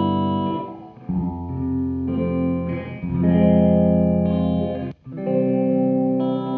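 Overdriven electric guitar, a Gibson Les Paul Custom through a Marshall 1987X amp and a Dr. Scientist Reverberator reverb pedal, playing sustained chords that ring out with reverb. The chord changes every second or two, with a brief break about five seconds in.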